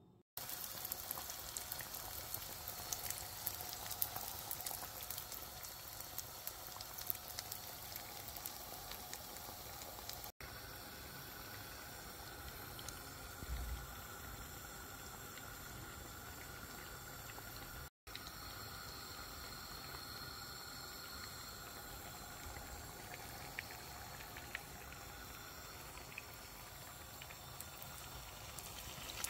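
Donuts frying in hot oil: a steady sizzle with fine crackling, broken by two brief dropouts about ten and eighteen seconds in.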